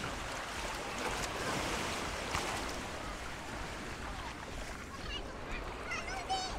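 Ocean surf washing onto a sandy beach, a steady hiss of breaking waves, with a few faint, short high calls near the end.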